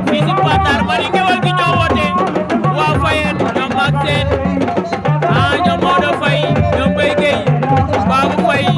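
Music: a song with a steady drum beat, a bass line repeating about once a second, and a singing voice over it.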